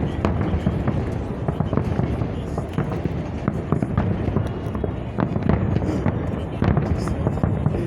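Fireworks salute: a dense, unbroken barrage of bangs and crackling bursts with a low rumble, and voices mixed in.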